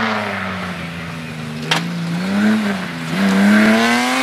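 BMW E30 3 Series rally car accelerating on a gravel stage, its engine pitch rising and falling, dipping briefly about three seconds in and then climbing again. A single sharp crack is heard just under two seconds in.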